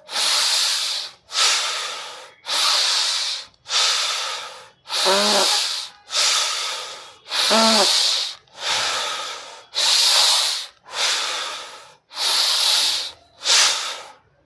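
A person breathing forcefully and rhythmically in a pranayama deep-breathing exercise: about a dozen loud, hissing breaths, roughly one a second, each starting sharply and fading. Two of them, near the middle, carry a short voiced sound.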